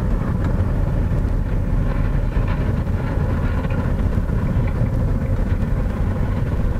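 Steady road and engine noise of a car being driven, a continuous low rumble.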